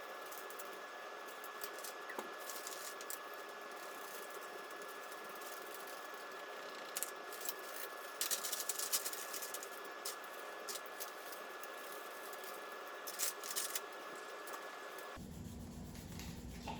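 Felt-tip markers scribbling on a paper plate, in scratchy bursts about seven to nine seconds in and again around thirteen seconds, over a steady background hiss with a faint high tone. Near the end the background switches abruptly to a low hum.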